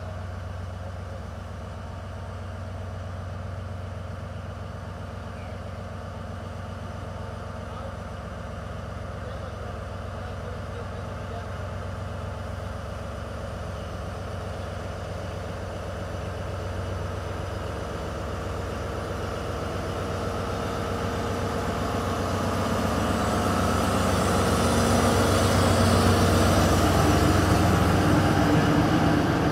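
Diesel locomotive's engine running with a steady low hum as it hauls a track-work train slowly forward, growing louder over the last ten seconds as it comes up close and draws alongside.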